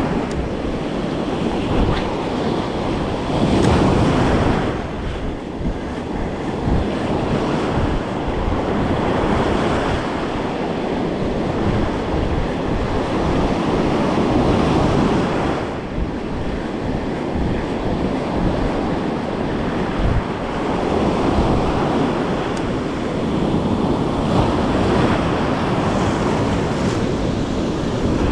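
Ocean surf breaking and washing up a beach, swelling and easing every several seconds, with wind rumbling on the microphone.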